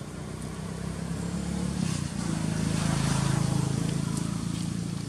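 Engine of a passing motor vehicle, growing louder to a peak about three seconds in and then fading away.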